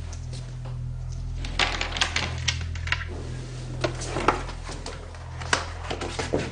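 Irregular sharp clicks and knocks from footsteps on a hard floor and a locker door being handled and opened, over a low steady drone of background music.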